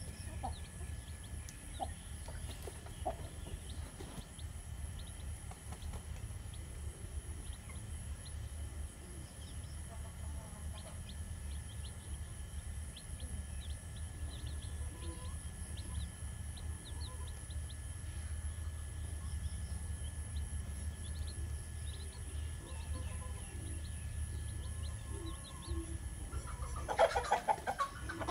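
Domestic chickens clucking quietly over a steady low rumble, with one louder chicken call about a second long near the end.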